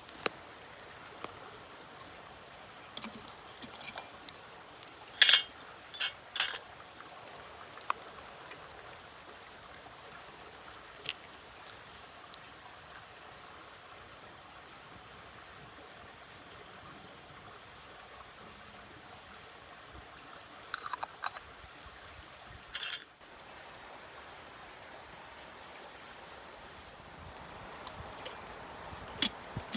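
Steady rush of running water with scattered sharp knocks and clicks over it. The loudest cluster of knocks comes about five to six seconds in, with a few more near the twenty-first and twenty-third seconds and again near the end.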